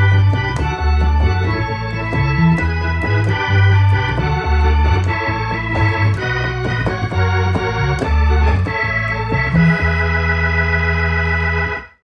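Organ music: a short intro tune of sustained chords over a bass line, ending abruptly near the end.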